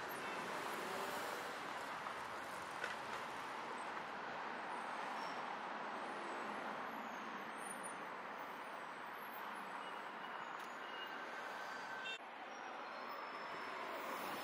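Steady noise of street traffic, with cars driving past, broken by a brief cut about twelve seconds in.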